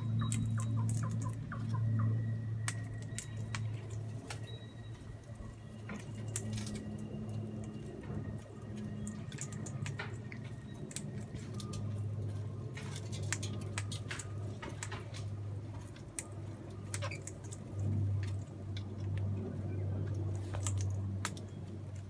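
Australian king parrots feeding at close range: scattered sharp clicks and crunches as their beaks work at the food, over a steady low hum.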